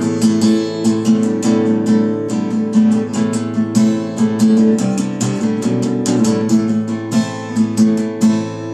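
Acoustic guitar strummed in a steady rhythm, several chord strokes a second, with no singing.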